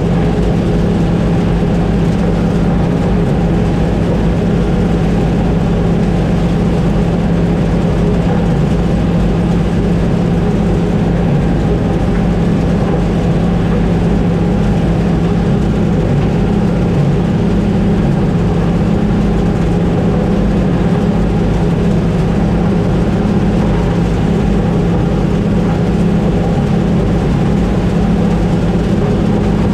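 Combine harvester running steadily while harvesting corn: a constant, loud engine and machinery drone with a strong low hum that does not change.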